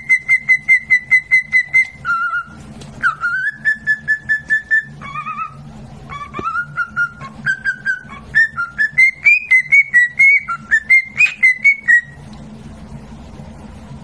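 Cockatiel whistling a tune in runs of short, quick notes, about five a second, stepping up and down in pitch between phrases with a few brief pauses.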